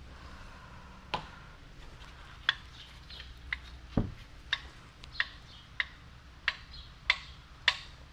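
Sharp metal clicks and taps, roughly one a second and coming quicker near the end, with a duller knock about halfway, as a main bearing cap is rocked and worked loose from a BMW S54 engine block.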